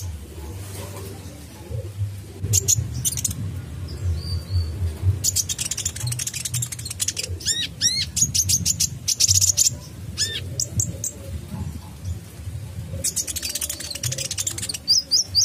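Male purple-throated sunbird (kolibri ninja) singing spells of rapid, sharp, high chirping notes: a short spell about three seconds in, a long one from about five to eleven seconds, and another from about thirteen seconds on.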